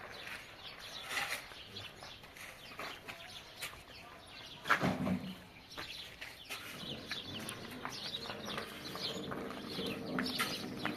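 Farm animals calling in a run of short, repeated calls, with a louder sound about five seconds in.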